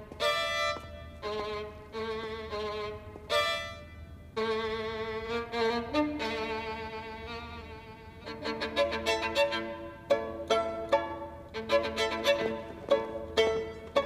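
Solo violin playing a melody, the first half in held notes with vibrato, then from about halfway in a run of quick, short bowed notes.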